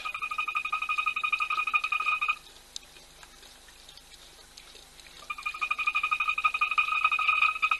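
A frog calling: a steady, fast-pulsing trill on one pitch. It breaks off after about two and a half seconds and starts again about five seconds in.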